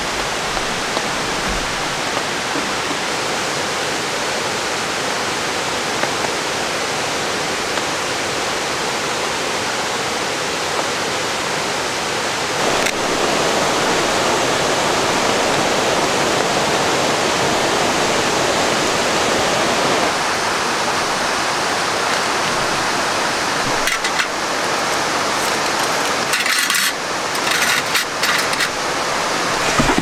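Steady rush of a valley waterfall and its stream, with the tone of the water shifting about twelve seconds in and scattered clicks and crackles near the end.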